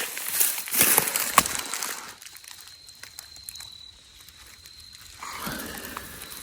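Dry leaves and brush crunching and rustling underfoot for about two seconds, then a quieter pause, then rustling again near the end.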